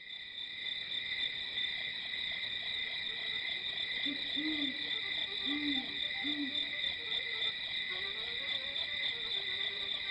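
Night ambience: crickets chirping steadily, with an owl hooting several short times around the middle.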